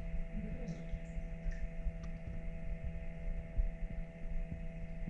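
AquaIllumination Nero 5 powerhead pump running at full speed: a fairly quiet, steady hum over an uneven low rumble.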